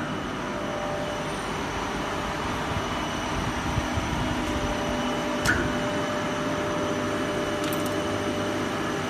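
15 kW direct-drive screw air compressor running steadily just after start-up, a steady machine hum with level whining tones. A sharp click sounds about five and a half seconds in.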